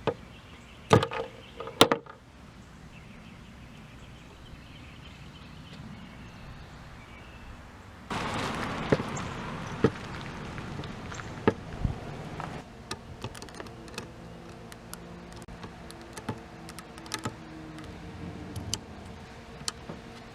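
Hand work on parts: two loud knocks about a second apart near the start, then a few seconds of rustling with sharp clicks, and scattered light clicks and taps after that.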